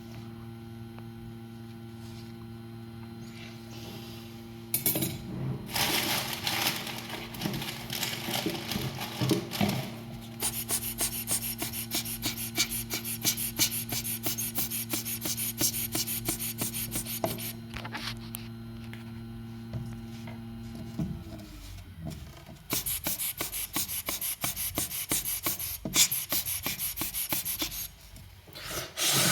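Rapid, repeated scraping strokes on a hard surface, coming in long runs, over a steady electrical hum that stops about 21 seconds in.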